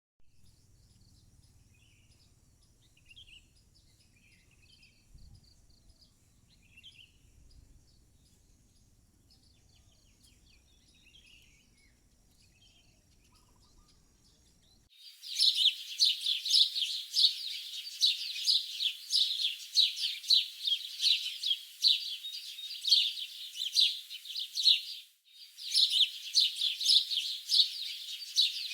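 Birds chirping: faint, scattered calls for the first half, then, starting suddenly about halfway, a loud, dense chorus of rapid high chirps that drops out for a moment near the end and resumes.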